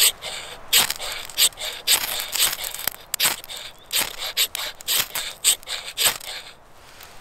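Steel knife spine scraped hard down a large ferrocerium rod (fire steel) to throw sparks onto birch-bark shavings: about ten quick scrapes, roughly two a second, that stop shortly before the end.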